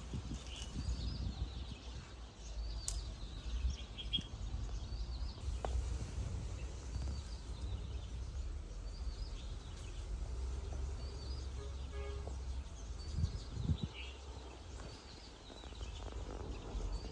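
Background ambience: a steady low rumble with many faint, short bird chirps scattered throughout, and one brief pitched call about twelve seconds in.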